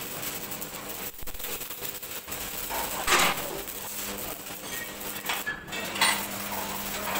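Metal clanks and scrapes from work on a sheet-steel cement mixer drum, over a steady hum, with two louder clatters about three seconds and six seconds in.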